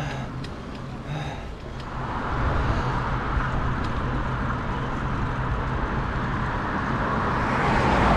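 Road traffic noise: a steady low motor hum under a rush of road noise that swells about two seconds in and holds.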